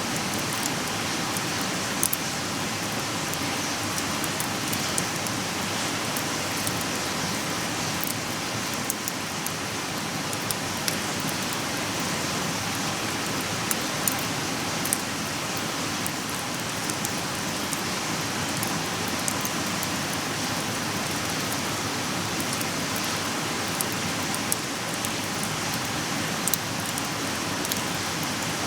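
Wood campfire burning: a steady hiss with irregular sharp crackles and pops from the burning wood.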